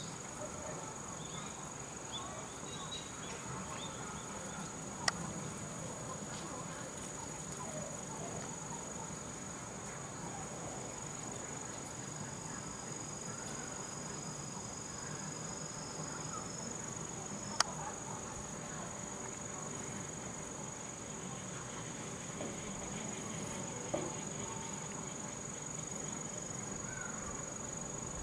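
A steady high-pitched insect trill, like crickets, that keeps on unbroken, with a second, lower trill joining for a few seconds in the middle. Three short sharp clicks sound at wide intervals.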